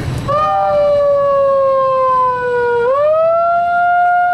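A loud siren wail: one strong pitched tone that starts suddenly, sags slowly in pitch for a couple of seconds, then swoops back up about three seconds in and holds.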